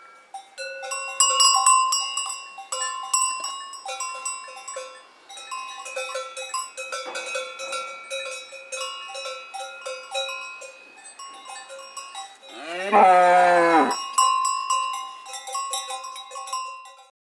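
Several cowbells clanking irregularly at different pitches, with a cow mooing loudly once for about a second, a little past two-thirds of the way through.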